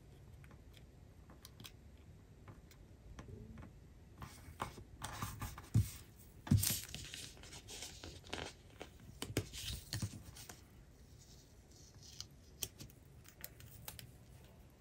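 Paper planner pages and a clear plastic sticker sheet handled and slid about on a wooden tabletop: scattered rustles, crinkles and light taps, busiest from about four to eleven seconds in, with two louder knocks near the middle.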